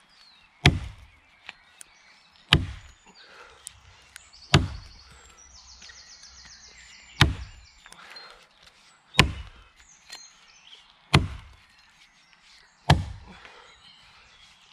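Heavy 6-pound Elwell axe chopping into the base of a standing tree trunk low to the ground: seven sharp blows, roughly two seconds apart.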